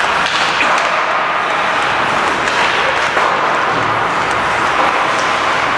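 Music playing over an ice hockey arena's PA, blended with the rink's echoing din, with a few sharp clacks of pucks and sticks.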